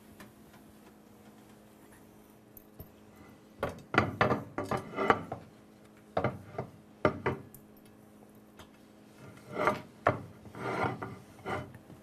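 A folded cleaning cloth rubbed over hard surfaces in quick wiping strokes, in three bouts starting about four seconds in. In the last bout the cloth is wiping the glass microwave turntable plate.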